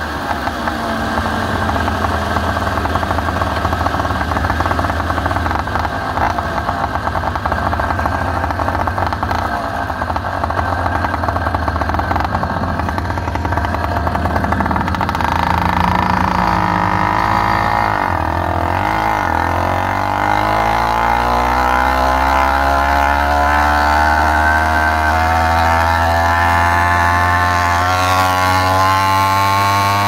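Two-stroke motorized-bicycle engine running while under way. It drops off and wavers briefly about halfway through, then climbs steadily in pitch as it accelerates through the last ten seconds.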